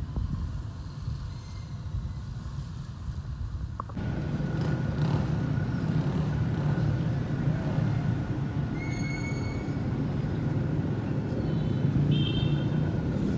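Steady street noise with a motor vehicle engine running, a low rumble that becomes suddenly louder about four seconds in. Two brief high-pitched tones sound near the middle and near the end.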